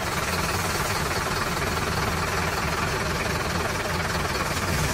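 Engine of a small tanker truck running steadily at low speed close by, a low, even rumble.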